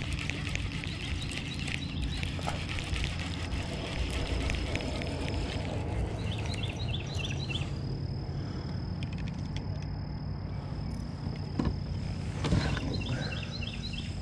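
A bird chirping in three short runs of quick repeated notes, over a steady low rumble and a faint steady high whine. A few sharp knocks come near the end.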